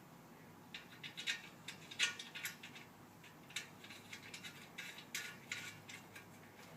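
Light, irregular clicks and taps of metal table-leg and bolt hardware being fitted into a patio table base's center ring, the bolts left loose.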